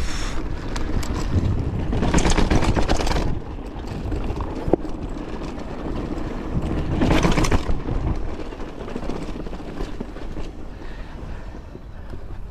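Riding noise from a mountain bike moving fast: wind buffeting the microphone and the tyres rumbling and rattling over the path. It gets louder twice, about two seconds and about seven seconds in.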